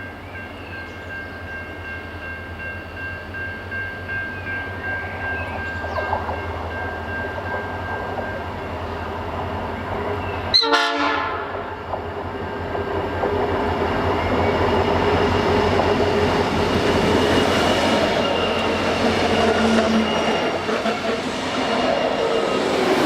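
Diesel freight train: a steady chord of horn tones held for about eight seconds over a low engine drone, a sharp brief crackle about ten seconds in, then the train rolling past, louder, with wheels clattering over the rail joints.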